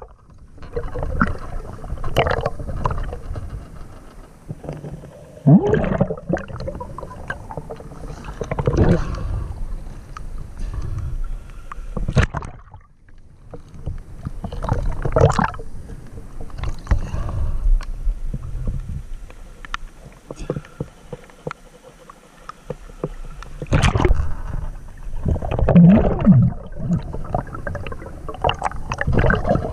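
Muffled underwater sound picked up by a camera held under river water: a steady murky rushing with irregular louder gurgling surges every few seconds.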